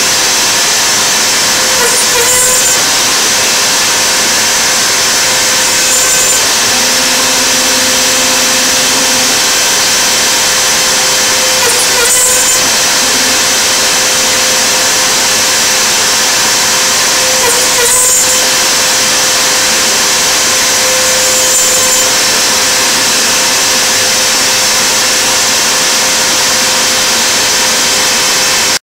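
CNC router spindle running while its cutter mills a 2 mm aluminium composite (Dibond) panel: a steady high whine and hiss, with a brief louder swell every few seconds.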